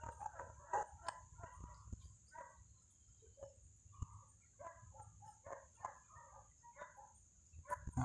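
Faint short animal calls repeating irregularly, at times several a second, over a steady high-pitched insect drone.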